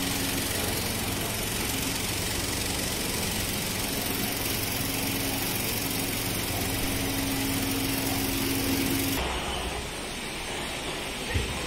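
Steady mechanical hum and whir of a running motor, a constant low tone under a broad hiss, which drops away abruptly about nine seconds in.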